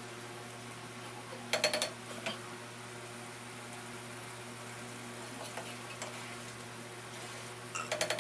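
Mutton and onion masala frying with a steady sizzle in a nonstick pot. A spatula stirs and knocks against the pot in a quick cluster about a second and a half in, and again near the end.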